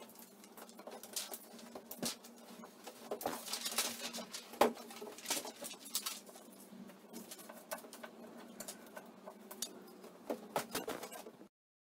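Large paper sheets rustling and crinkling against a wall while masking tape is pulled and pressed on, with scattered light taps over a faint steady hum. The sound cuts off suddenly near the end.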